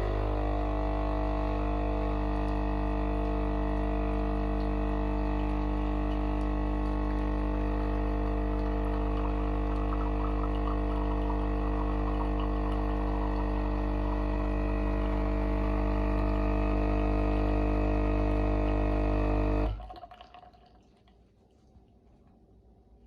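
Philips LatteGo fully automatic espresso machine brewing: its pump runs with a steady, loud buzzing drone, then cuts off abruptly near the end.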